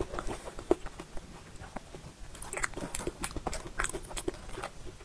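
Metal spoon digging into and scraping through a soft mousse cake, with scattered small clicks and scrapes.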